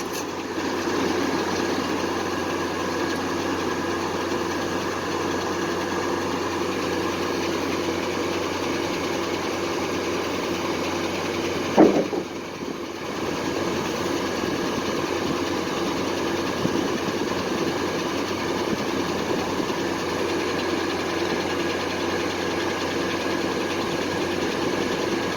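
The engine of a Foley Belsaw circular sawmill running steadily, with no cut under way. About halfway through there is one short, sharp knock, and the sound dips briefly after it.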